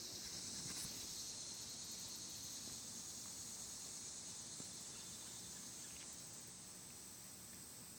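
Steady high-pitched chorus of insects such as crickets, an unbroken chirring that fades slightly in the last couple of seconds.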